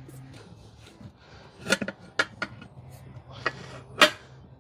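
A handful of sharp metal clinks and knocks with a short scrape: tire levers working against a motorcycle wheel rim and tire during a hand tire change. A faint steady low hum runs underneath.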